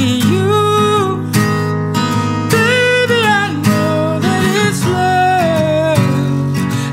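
Acoustic guitar strummed steadily, with an accented strum about once a second, under a wordless sung melody that slides and wavers in pitch.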